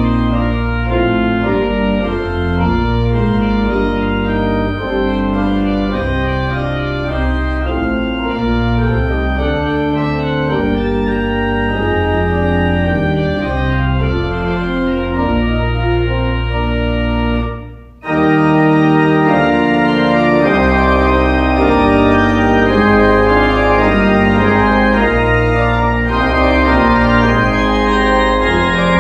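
Organ music: sustained chords over a moving bass line, with a short break about eighteen seconds in before the playing resumes.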